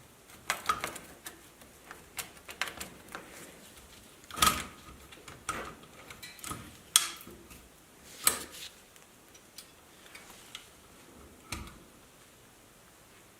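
Irregular clicks and light metallic knocks, some with a brief ring, from an antique calculator's mechanism being handled and worked on during repair.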